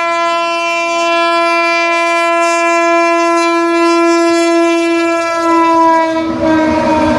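Electric freight locomotive's air horn sounding one long, steady blast as it approaches hauling oil tank wagons. About six seconds in, as the locomotive passes, the pitch drops slightly, and the rumble of the passing train rises under it.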